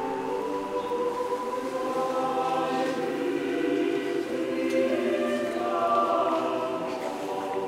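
Choir singing slow, held chords in several parts.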